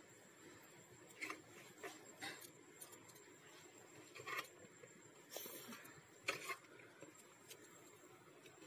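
Faint, sparse handling sounds: a few soft clicks and rustles of a hand scooping chopped vegetables from a plate into a steel mixing bowl.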